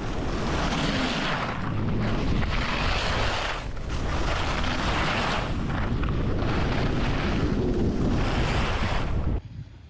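Wind rushing over the microphone of a camera carried down a groomed ski piste, with skis hissing and scraping on the snow in swells about every two seconds as they carve turns. The noise cuts off abruptly near the end.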